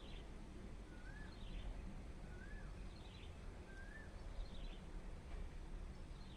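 A bird calling over and over, about every one and a half seconds: a short whistled note that rises and then dips, followed by a quick higher cluster of notes. A low steady rumble runs underneath.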